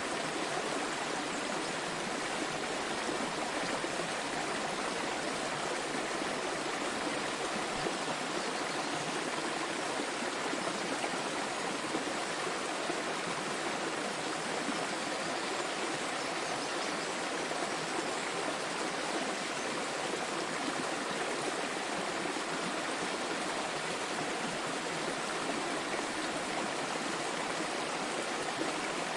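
A small waterfall: water falling and splashing in a steady, even rush with no breaks.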